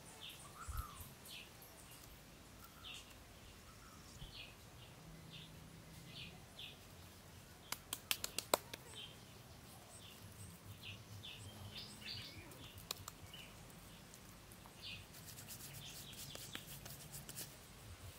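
Small birds chirping in short, repeated calls. A quick run of sharp taps or clicks about eight seconds in is the loudest sound, with fainter clicks again near the end.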